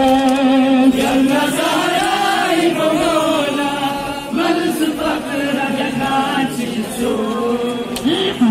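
A mourning chant (noha) for Muharram sung by a voice in long, wavering held notes.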